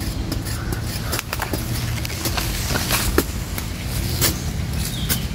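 Small hand spade striking and scraping dry soil in quick, irregular strokes while digging into a tarantula burrow.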